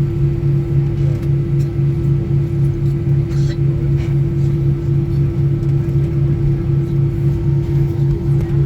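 Passenger aircraft cabin noise while taxiing: a steady low rumble with a constant hum and a lower drone that pulses about four times a second.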